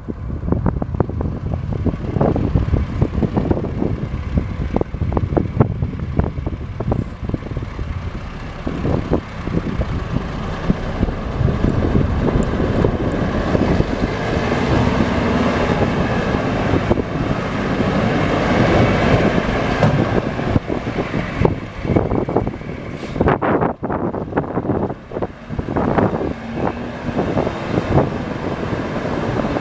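A 1991 Ford LT9000 mixer truck's Cummins 10-litre inline-six diesel engine running, with wind buffeting the microphone.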